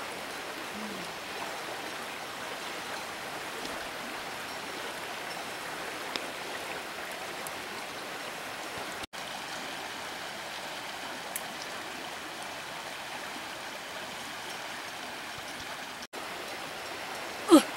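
River water running steadily with an even rushing sound, briefly cutting out twice. A short, loud sound falling in pitch comes right at the end.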